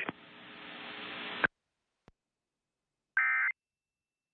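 Emergency Alert System end-of-message data burst: a short, buzzy screech of digital tones about three seconds in, the first of the repeated bursts that close an EAS alert. Before it, a faint hiss swells and cuts off with a click.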